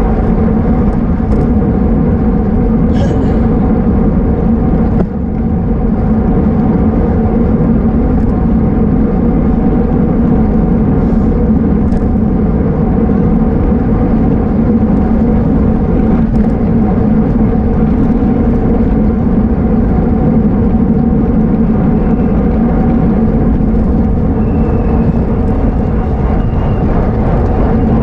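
Steady rush of wind and road noise from a road bicycle ridden at race speed, with a constant low hum underneath.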